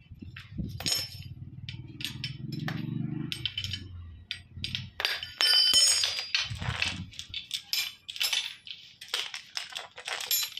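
Irregular metallic clinks and scrapes of a steel hydraulic hose fitting and spanners being handled on a stone floor while the fitting is screwed onto a rubber hose, busiest in the second half. A low hum sounds under the first few seconds.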